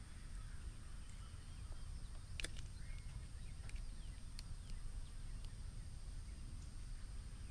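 Steady low wind rumble on the microphone, with a few sharp clicks, the loudest about two and a half seconds in, and faint bird chirps.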